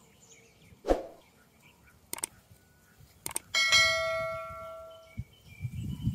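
Subscribe-button sound effect: a knock and a few quick mouse clicks, then a bright bell ding that rings out and fades over about a second and a half.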